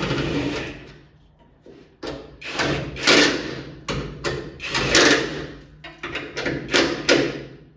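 Cordless power driver run in four short bursts of about a second each, driving in the bolts of a car's upper hood latch.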